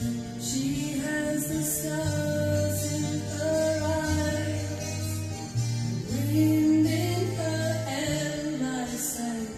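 A song with singing, played back from a cassette tape on a freshly overhauled Akai GX-7 cassette deck.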